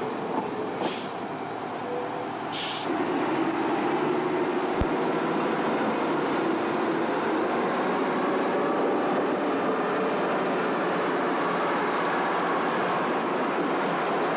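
Steady noise of rail machinery running, a rushing mechanical din with a low hum under it, which gets louder about three seconds in and then holds steady.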